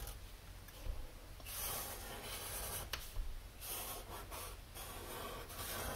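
Sharpie felt-tip marker drawing on paper: several short scratchy strokes as a shoe is outlined and coloured in, with a light tap about three seconds in.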